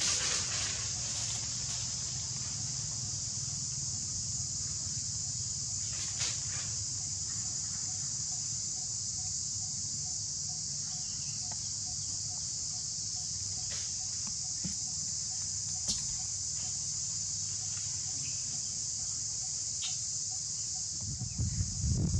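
Steady, high-pitched chorus of insects such as crickets or cicadas, with a low hum beneath it and a few faint clicks. Near the end, a cluster of louder low thumps.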